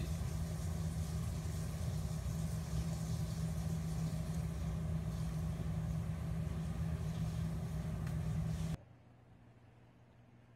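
A steady mechanical hum with a constant low tone, which cuts off suddenly about nine seconds in, leaving near quiet with a few faint ticks.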